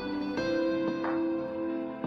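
Soft instrumental background music: held notes, with a fresh note struck about half a second in and lighter ones after.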